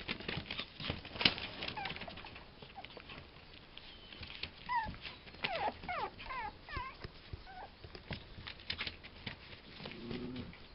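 Schipperke puppies whining and yipping in short, wavering squeals while they wrestle, over a scuffle of paws on newspaper and blankets. Near the end comes a short, lower-pitched growl.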